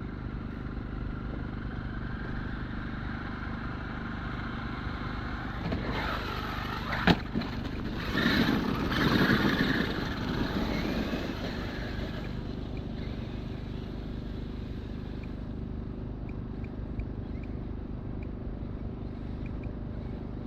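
Traxxas X-Maxx RC monster truck running on ice, its brushless electric motor whining up in pitch about six seconds in. A sharp knock follows about a second later, then a few seconds of louder tyre spin and scrabbling. Under it all runs a steady hum.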